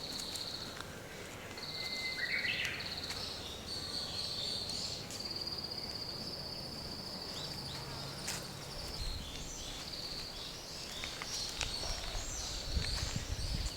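Insects trilling steadily in a high pitch, with a short bird call about two seconds in.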